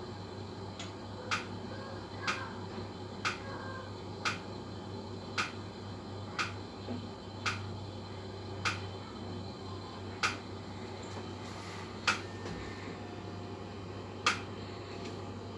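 Daikin combi boiler making sharp 'tak tak' clicks over a steady low hum. The clicks come about once a second, then spread to about every two seconds near the end. It is an unexplained knocking from a boiler only three months old.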